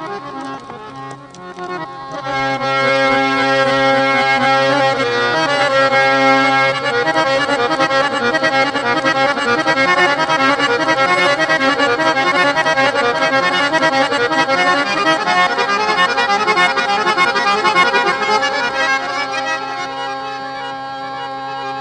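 Harmonium playing a melody over a held low drone note. It dips softer about a second in and swells fuller from about two seconds on.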